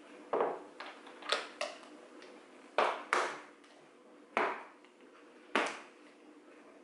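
A glass food-storage container with a plastic lid and a pair of long metal tongs being handled on a wooden counter: a series of sharp clicks and knocks, about eight in all, each with a short ring.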